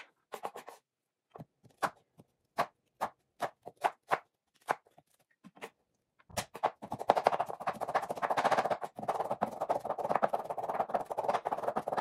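Kitchen knife cutting garlic on a wooden cutting board: separate, irregular chops at first, then about six seconds in a fast, continuous run of chopping as the garlic is minced.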